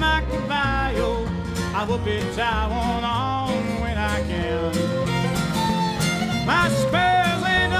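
Country-western background music: an instrumental stretch of the song, a lead line sliding between notes over a steady bass and accompaniment.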